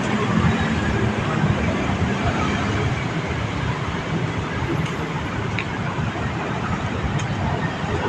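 Steady background rumble of city traffic.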